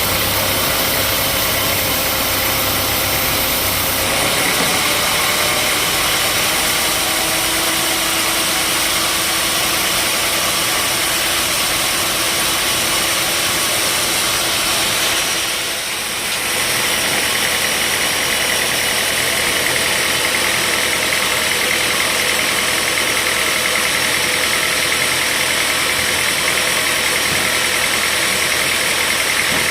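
Sawmill machinery running steadily with an engine-like drone. Its tone shifts about four seconds in, and it briefly drops in level about halfway through.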